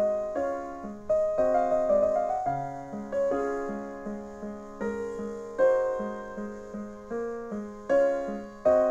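Piano music: single notes and chords struck about twice a second, each fading away before the next.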